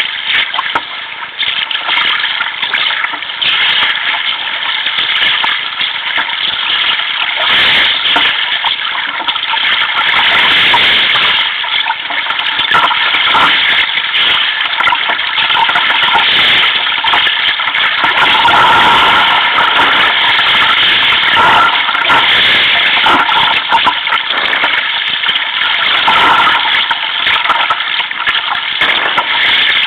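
Sea water rushing and splashing along a sea kayak's hull and deck in a choppy sea, a loud continuous wash that swells and eases with the waves.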